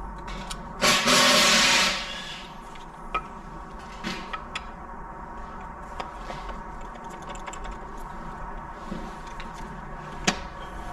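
Hand work on a diesel engine's cylinder head as camshafts and valve-train parts are fitted: a loud hiss lasting about a second near the start, then light clicks and taps of metal parts and tools being handled, with one sharp click near the end, over a steady hum.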